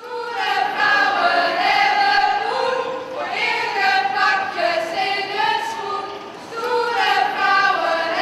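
Group of women's voices singing a melody together in chorus.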